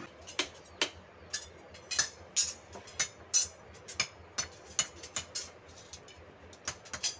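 Thin steel bolo blades clinking against each other as a bundle is handled: sharp, light metallic clicks at an uneven pace of about two a second, with a short pause near the end.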